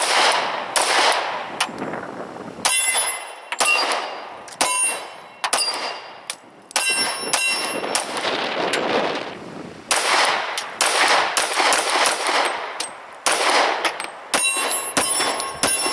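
A Glock 22 .40 S&W pistol firing a string of shots in quick bursts, each shot a sharp crack; several shots carry a metallic ringing.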